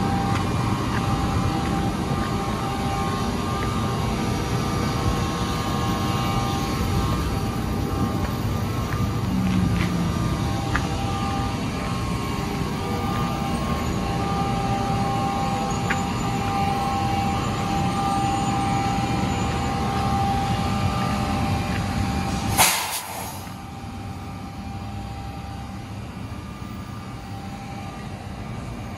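NJ Transit electric locomotive standing close by, running with a steady low rumble and a steady whine. About three-quarters of the way through there is one sharp snap, after which the sound is noticeably quieter.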